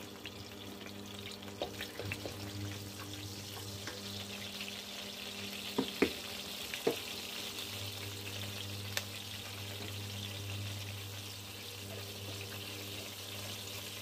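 Cumin seeds sizzling steadily in hot ghee in a steel kadhai as they roast, over the steady low hum of an induction cooktop. Several sharp clicks, the loudest about six seconds in.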